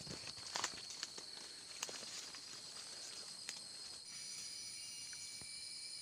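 Steady high-pitched insect chorus in tropical rainforest, with scattered crackles of footsteps on leaf litter and twigs during the first few seconds; about four seconds in the insect drone changes pitch.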